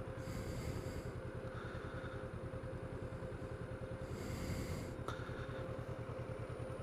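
An engine idling faintly with a fast, even low pulse, under a thin steady hum.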